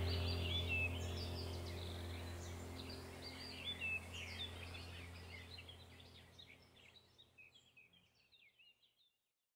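Birds chirping over a low steady drone, both fading out to silence about six seconds in.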